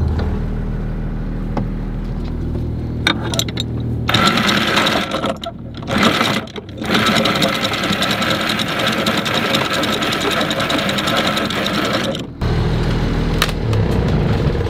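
Anchor windlass paying out chain over the bow of a trawler as the anchor is dropped: a fast, dense mechanical rattle that starts about four seconds in, breaks off briefly twice, and stops about twelve seconds in. Underneath, the boat's Lehman diesel idles with a low steady hum, which is heard alone before and after the chain runs.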